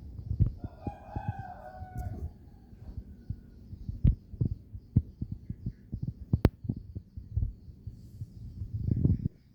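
Irregular low thumps and knocks throughout, with a rooster crowing once about a second in. A faint, high, rapid chirping repeats steadily in the background.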